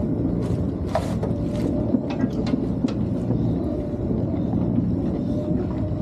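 A boat's motor running steadily with a low hum, with scattered light clicks and knocks over it.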